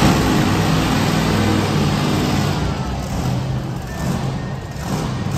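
Monster truck engine running, a steady low engine note under a wash of noise.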